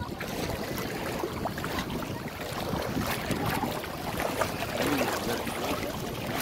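Wind rushing on the phone's microphone over the wash of shallow sea water, with faint distant voices of bathers now and then.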